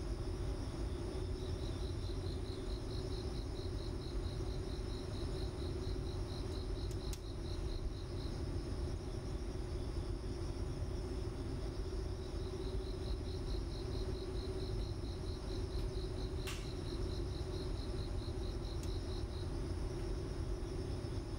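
An insect-like trill: a rapid, even train of high-pitched pulses at one pitch, in two runs of about seven seconds each, over a steady low hum. A single sharp click comes about sixteen seconds in.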